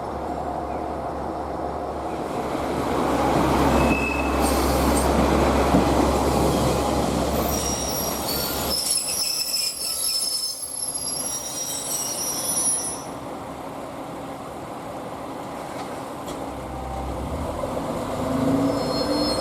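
Train passing close by: the rumble of its wheels on the rails builds to a peak a few seconds in, then high metallic wheel squealing rings out for several seconds before the noise dies down and rises again near the end.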